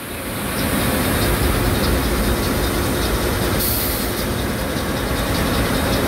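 Ship's main diesel engine and engine-room machinery running: a loud, deep, steady rumble with a faint regular ticking, growing louder in the first second. A short hiss comes about three and a half seconds in.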